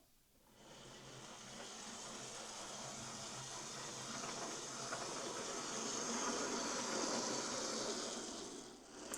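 Lima Class 37 OO gauge model locomotive running on track powered by its replacement CD motor: a steady whirr of motor and wheels on the rails that grows gradually louder, then fades away near the end.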